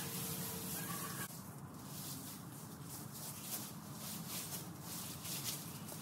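Leafy cut tree branches rustling and scraping as they are dragged across a leaf-strewn lawn, an uneven, crackling hiss.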